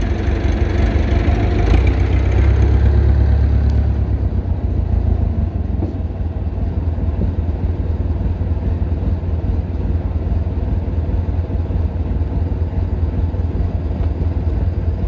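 Massey Ferguson 50HX backhoe loader's diesel engine running. It is fuller and louder for the first four seconds, then settles to a steady idle.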